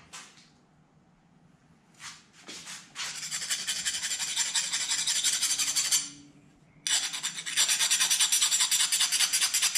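Terry cloth towel rubbing quickly back and forth along a freshly oil-quenched copper-clad (cu-mai) knife blade, wiping the quench oil off. The rubbing starts about three seconds in, stops briefly near six seconds, then picks up again louder.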